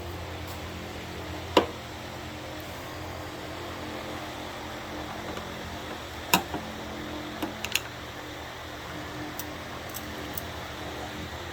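Two sharp metal knocks, about five seconds apart, then a few lighter clicks, from a screwdriver working at an engine oil pan stuck fast on its gasket. A steady hum runs underneath.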